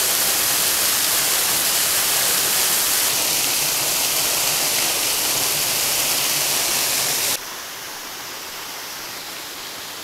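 Waterfall heard from behind its falling curtain of water: a loud, steady rush of water pouring and splashing onto rock. About seven seconds in it drops suddenly to a quieter rush.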